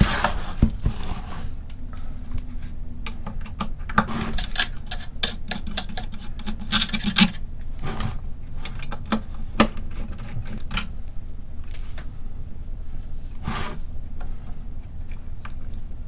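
Hands working a small brass push-fit connector into a 3D printer's plastic extruder housing: irregular clicks, taps and rubbing of plastic and metal parts, with a steady low hum underneath.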